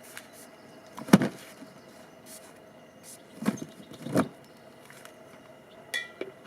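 Steady hum of honeybees around the hive, with three dull knocks of something being handled or set in place, the first about a second in and two more close together a few seconds later.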